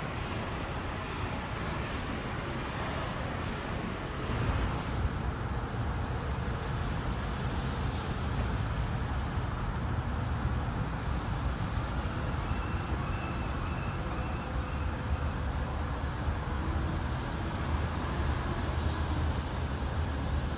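Steady street traffic noise, with a deeper rumble coming in about four seconds in.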